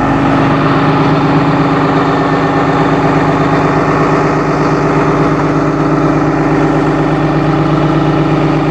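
Diesel engine of a 2010 Blue Bird All American front-engine bus, a 6.7-litre Cummins, idling steadily and humming along.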